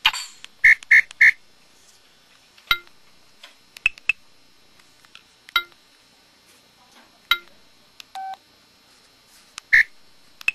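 Samsung SCH-X750 mobile phone key tones: short beeps with clicks as keys are pressed. Three quick beeps come under a second in, then single beeps spaced a second or two apart, and one slightly longer, lower tone about eight seconds in.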